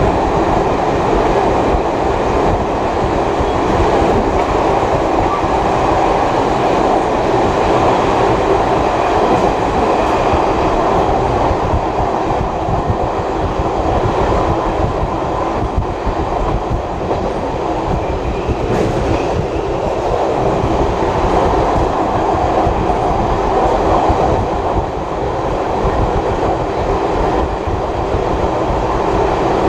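Passenger carriage running along the rails, heard from on board: a steady rumble and clatter of wheels on track, with no change in pace.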